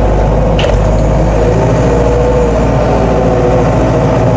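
Collins Teleshift 404 farm loader's engine running steadily, its pitch dipping slightly and recovering in the middle.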